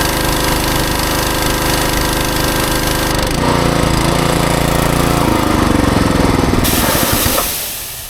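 Westinghouse WPX3200 gas pressure washer running under load, with the gun spraying. About six and a half seconds in, the high hiss of the spray cuts off, and about a second later the engine sound falls away.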